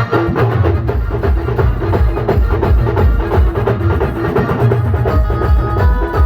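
Live band music driven by dense, fast drumming with heavy bass-drum beats. A melody of held notes comes in about five seconds in.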